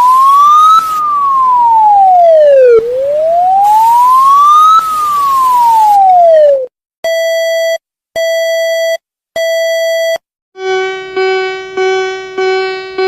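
Electronic emergency-alert alarm tones in sequence: a siren-like wail rising and falling slowly, about two seconds each way, twice; then three long steady beeps; then a lower tone pulsing about twice a second.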